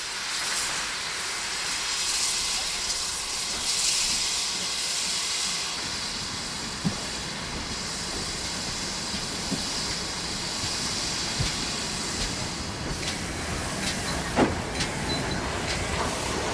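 Steam hissing steadily from GWR steam locomotives, the sound of steam escaping around the cylinders and wheels. A few sharp metallic clicks come in the last few seconds.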